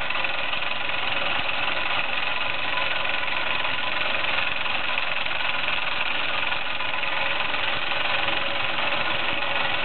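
Meccano MEC1 toy steam engine running fast under steam, turning its gear train and twin propeller shafts: plenty of noise, a steady, even mechanical running sound with no change in speed.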